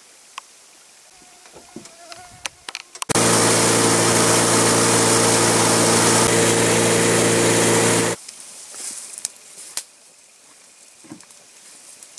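Motorboat running at speed: a steady engine drone with rushing water spray and wind. It starts abruptly about three seconds in and cuts off about eight seconds in. Before and after, only faint clicks and knocks.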